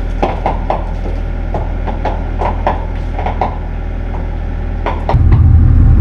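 Chains and steel parts of a disc chisel harrow clinking and clanking irregularly as it hangs from a mini excavator's bucket, over the excavator's diesel engine idling. About five seconds in, a much louder, steady low engine drone takes over, as heard from inside the excavator's cab.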